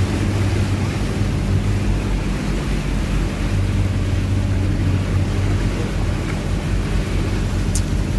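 Boat engine running steadily with a low hum, mixed with rushing water and wind noise.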